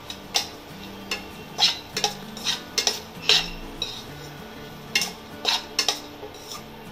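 A spoon scraping and knocking against a kadhai while stirring chopped cashews and almonds roasting in ghee, in about a dozen irregular strokes.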